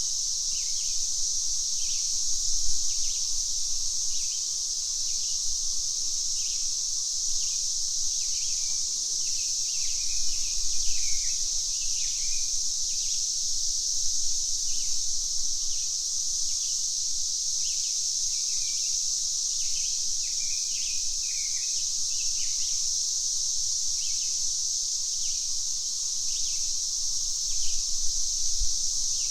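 Cicadas droning in a steady high-pitched hiss, with birds giving short chirping calls over it again and again.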